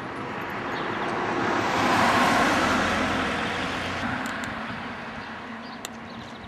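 A car passing by on the road: tyre and engine noise builds to a peak about two seconds in, then fades away.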